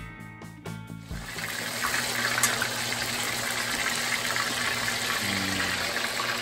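Breaded chicken cutlets frying in hot oil in a skillet: a steady, dense sizzle that swells in over the first couple of seconds and then holds.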